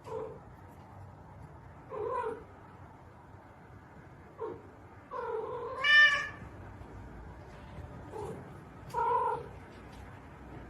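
A cat meowing and yowling in about six separate calls, the longest and loudest drawn out about five to six seconds in.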